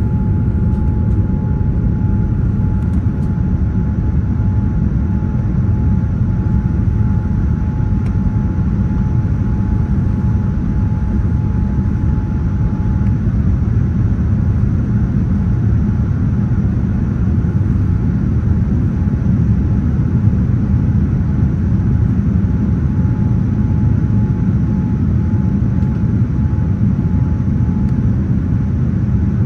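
Jet airliner cabin noise in flight: a steady low rumble of engines and airflow heard from a window seat, with a faint steady whine that drops away about halfway through.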